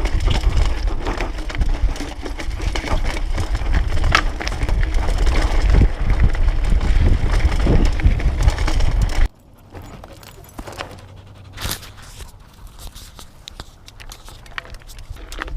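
Mountain bike riding over a dirt trail: tyres crunching on gravel, with rattles and clicks and heavy wind and handling noise on a handheld action camera's microphone. About nine seconds in the rumble cuts off suddenly, leaving scattered crunching and clicks.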